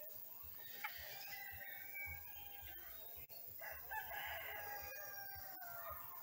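A bird calling: two long, drawn-out calls of about two seconds each, the first about a second in and the second midway through.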